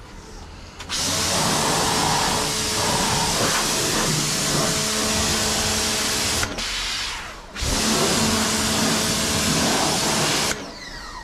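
Ingco 1400 W electric pressure washer running, its motor humming under the hiss of the water jet spraying onto a motorcycle and concrete. It starts about a second in, stops briefly after about six seconds, starts again a second later and cuts off near the end.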